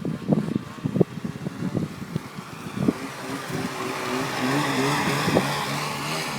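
Snowmobile engine revving, its note wavering up and down and swelling in loudness from about halfway through. Before that, uneven low thumps.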